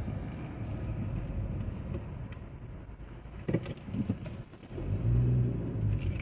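Car running, a steady low rumble, with a few sharp knocks about three and a half to four seconds in and a louder low hum near the end.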